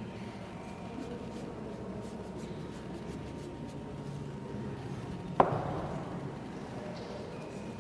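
Steady low room hum, broken about five seconds in by a single sharp knock at the watercolour painting table that rings briefly.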